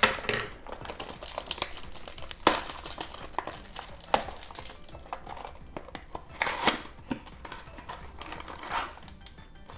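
Cellophane wrap crinkling and tearing as it is pulled off a small cardboard toy box. It is a dense, irregular crackle for the first few seconds, then a few scattered rustles as the box flap is opened.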